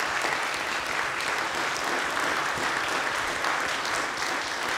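Audience applauding steadily, many hands clapping at once, at the close of a talk.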